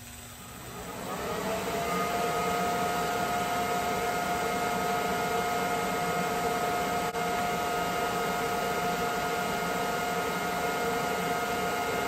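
An electric motor whine that rises in pitch over the first two seconds, then runs steadily with several held tones, over the hiss of arc welding on steel.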